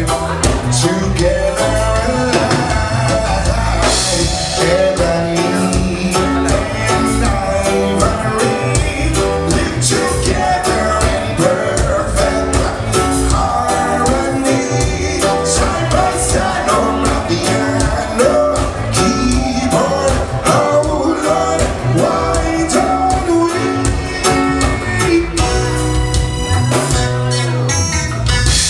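A live band playing a song, with a singer, electric guitar and drums keeping a steady beat.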